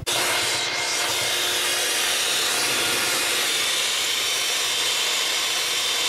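Electric hand mixer running steadily at one speed, its twin beaters whipping frozen berries, whey protein and a little milk into protein fluff. The steady motor whine and churning start abruptly as it is switched on.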